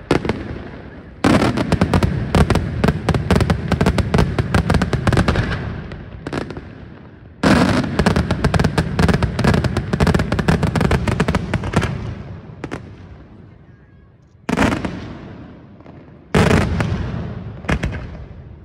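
Daytime colour-smoke fireworks: two long barrages of rapid-fire bangs and crackles, each lasting about four to five seconds, then a few single loud bangs in the last seconds.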